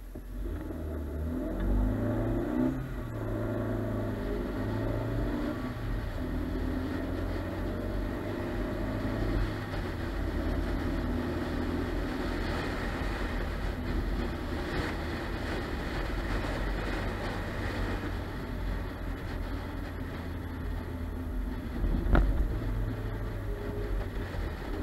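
Car pulling away from a standstill and accelerating through the gears, its engine note stepping up over the first few seconds, then cruising with steady engine and tyre noise. There is a single sharp knock near the end.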